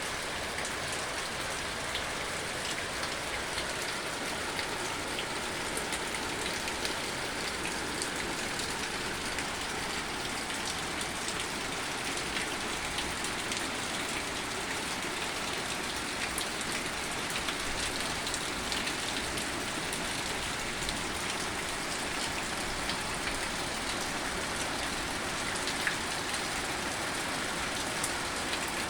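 Steady rain falling on hard surfaces, an even hiss with scattered individual drop ticks.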